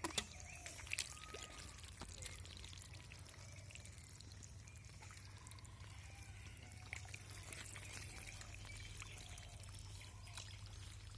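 Wet mud and shallow water squelching and trickling as hands grope through the mud of a drained pond for fish, with a couple of sharp knocks in the first second.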